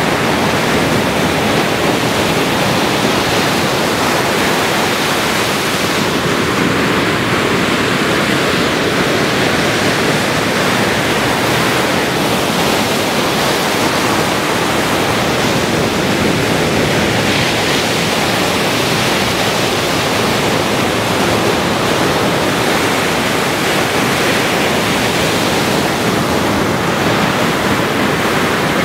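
Ocean surf breaking and washing ashore, heard as a loud, steady, even rush of noise with no single wave standing out.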